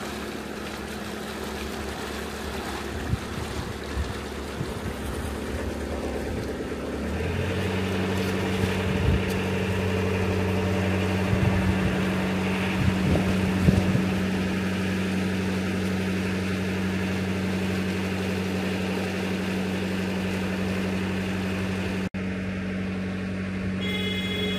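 Narrowboat's diesel engine running steadily; about seven seconds in it is throttled up and runs louder and higher as the boat gets under way, then holds steady, with a brief break near the end.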